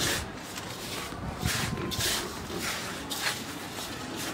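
Hands mixing dry spice powders and seeds in a large aluminium bowl: repeated gritty rubbing swishes, one with each stroke, coming irregularly about every half second to second.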